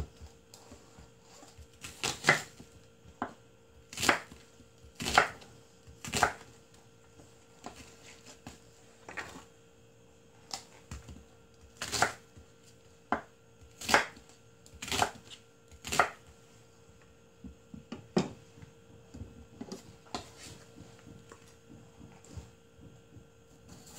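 Chef's knife cutting through an onion and knocking on a wooden cutting board: sharp single chops every second or two, at an uneven pace.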